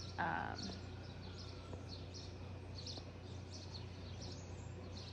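Faint bird chirps repeating over a low steady hum, with a brief short sound right at the start.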